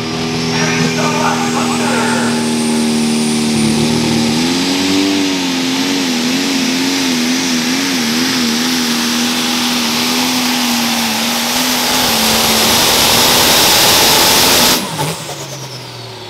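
Turbocharged diesel pulling tractor at full throttle under load, its engine note wavering and growing louder, with a high whine climbing in the first two seconds. Near the end the sound cuts off sharply as the throttle is let off, and the engine winds down in falling pitch.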